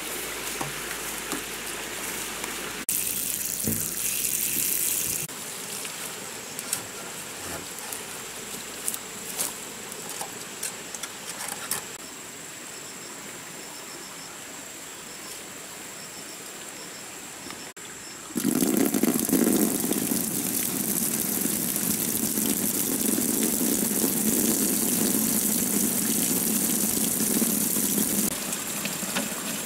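Water gushing in a steady stream out of an open bamboo pipe and splashing onto the grassy ground. It starts suddenly about two-thirds of the way in and is the loudest sound. Before it there is quieter rustling and a few light knocks in the vegetation.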